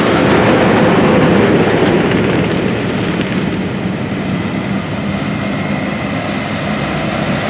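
Large John Deere farm machinery driving along a road: a heavy diesel engine running with tyre and road noise. It is loud at first and eases off about two seconds in, as if the machine is passing and moving away.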